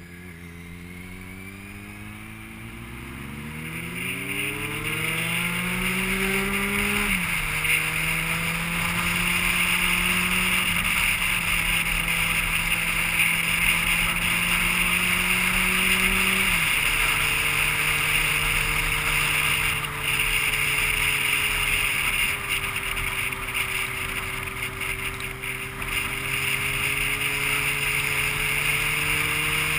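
A vehicle engine pulling up through the gears: its pitch rises for several seconds, drops at an upshift about seven seconds in, holds, drops again at a second shift around sixteen seconds in, then runs steady. A steady rushing noise joins it about four seconds in.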